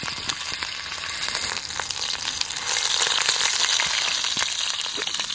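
Pieces of skunk meat frying in hot oil in a cast-iron skillet: a steady sizzle, thick with small crackles and pops.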